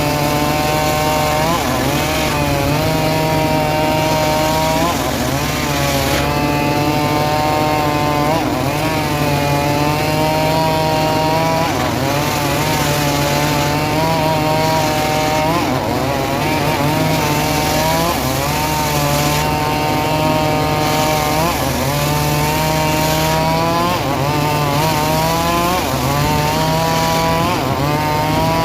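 Homemade engine-driven srekel sawmill running steadily while cutting sengon wood. The engine note dips and recovers every couple of seconds as the blade takes the load.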